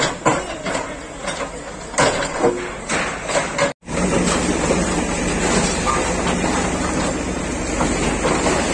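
Backhoe loader's diesel engine running while its bucket breaks into a concrete-block wall, with irregular knocks and crashes of masonry in the first few seconds. After a brief dropout about four seconds in, the engine runs steadily as the bucket works in the rubble.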